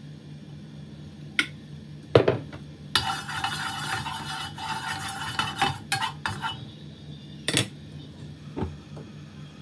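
Metal cooking utensils knocking and scraping against a pan while fish fries, with a loud hissing sizzle lasting about three and a half seconds in the middle. A steady low hum runs underneath.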